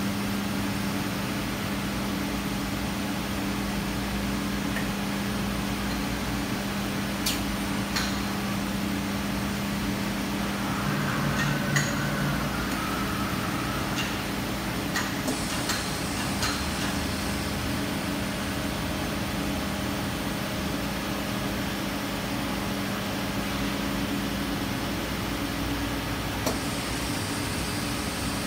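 Makino EDNC65-A16 sinker EDM machine running with a steady electrical hum and pump noise, with a few faint clicks now and then.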